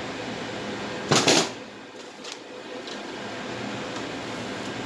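Steady ventilation hiss from the ceiling air supply, interrupted about a second in by a short, loud rustling burst of handling noise, followed by a couple of faint clicks.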